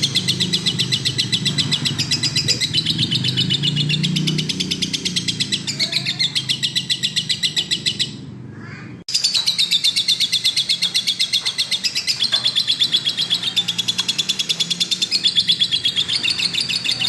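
Lovebird chattering in a long, unbroken run of fast, evenly repeated high chirps, the continuous in-form 'gacor' song that keepers prize. The chirping drops out for about a second a little past halfway, then starts up again.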